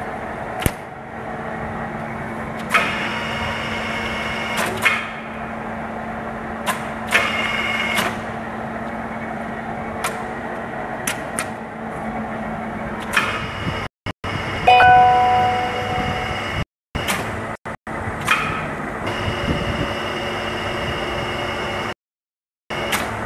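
A 1967 Niigata 2UMA milling machine runs with a steady hum. Its levers and handles are worked by hand, giving repeated sharp metallic clicks and clunks, several of them with a brief ring. The sound drops out briefly a few times.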